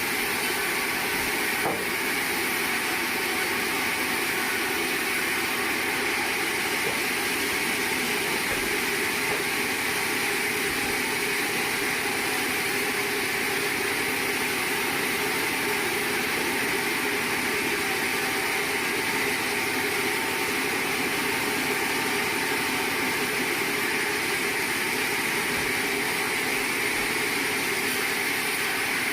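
Sawmill machinery running with a steady, even noise that does not change.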